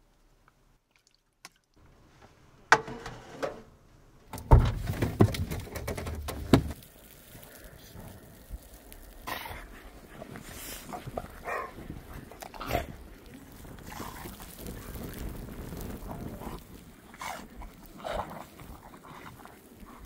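Two dogs, a large dog and a small terrier, play-fighting in the snow, giving a run of short dog vocalisations. A loud low rumble comes about four and a half seconds in and lasts about two seconds.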